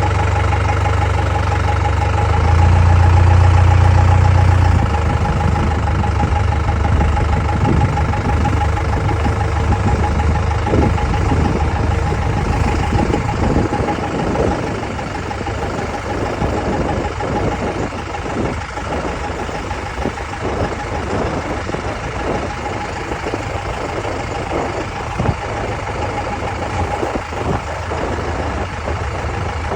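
Cummins 4BT four-cylinder turbo diesel running, with an internal knock. The engine note is louder for a couple of seconds near the start, then settles to an idle with short, irregular knocks and a steady whine over it.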